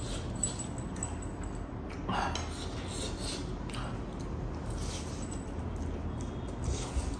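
Metal fork clinking and scraping on a stainless steel plate of noodles, with soft slurping and chewing as forkfuls are eaten.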